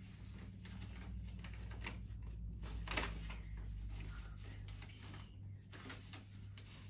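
Sheets of paper being handled and leafed through: faint irregular rustling with a louder rustle about three seconds in, over a low steady hum.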